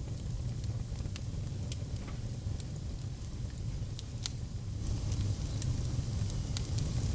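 Wood fire crackling: scattered sharp pops and snaps over a steady low rumble of the flames, with a hiss coming up about two-thirds of the way through.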